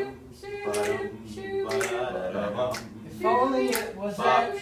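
A small group of voices singing a cappella in wordless harmony, with sharp percussive hits keeping a beat roughly once a second.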